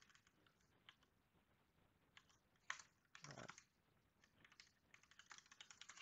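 Faint typing on a computer keyboard: scattered key clicks, a quick run of keystrokes near the end, and one short louder noise a little over three seconds in.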